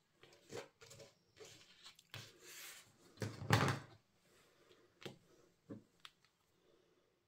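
Light taps, clicks and rustles of craft tools and die-cut cardstock pieces being handled on a work surface, with a heavier knock about three and a half seconds in.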